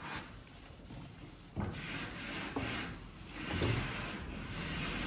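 A cloth rag rubbing oil finish into the wooden panels of a cupboard in uneven wiping strokes. There is a soft knock about a second and a half in.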